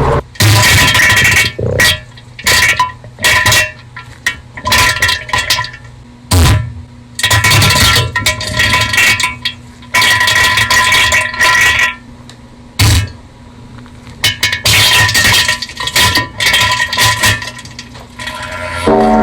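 Fictional 'alternate' Emergency Alert System alarm sound: loud, choppy noise bursts that start and cut off abruptly at irregular intervals, with steady high tones running through the loud stretches.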